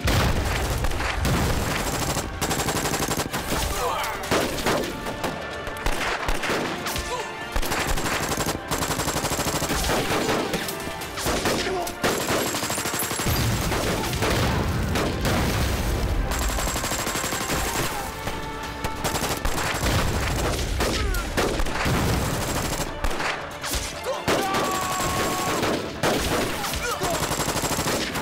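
Dense, continuous rifle and machine-gun fire of a war-drama battle scene, mixed with explosions, the heaviest low rumble about halfway through.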